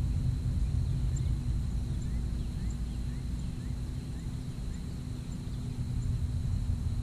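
Ambience on a bass boat on a lake: a steady low rumble with a faint constant hum under it, and faint short high chirps scattered throughout.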